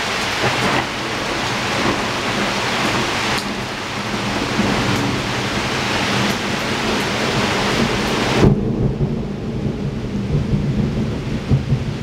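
Heavy rain falling on a window during a thunderstorm, with thunder rumbling low beneath it. About eight and a half seconds in, the hiss of the rain drops away suddenly, leaving mostly the low rumble.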